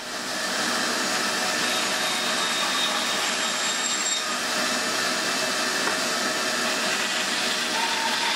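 Rikon 10-3061 band saw running steadily while its blade cuts through the end of a pine cleat on a plywood bench hook.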